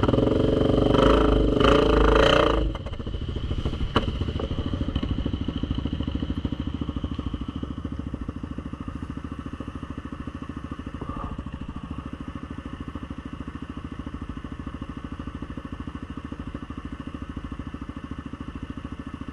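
ATV engine revving hard for nearly three seconds, then dropping to a steady, even running at low revs; a single sharp knock about four seconds in.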